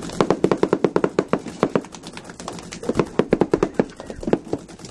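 Rapid paintball fire: two volleys of sharp pops, about seven a second, with a short break about two seconds in.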